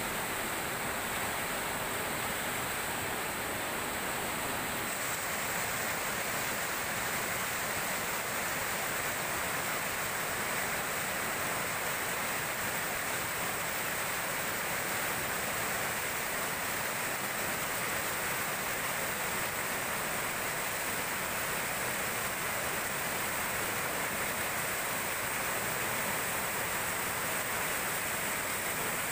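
Fast, swollen river water rushing over a low concrete dam, a steady churning white-water roar.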